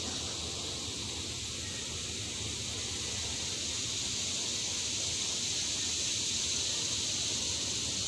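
Cicadas calling in a chorus: a steady, high-pitched drone that runs without a break.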